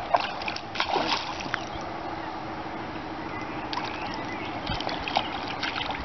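A small carp being played on a light rod from the bank: low water sloshing with scattered sharp clicks and knocks from handling the rod and reel, over a steady hiss.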